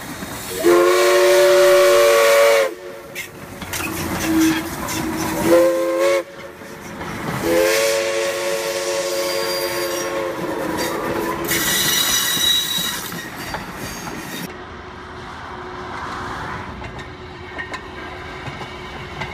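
Steam locomotive's whistle blowing several blasts, each a chord of a few notes: a long one, a short one, then another long one as the engine passes. A burst of steam hissing follows, and then the sound falls to a quieter steady rumble.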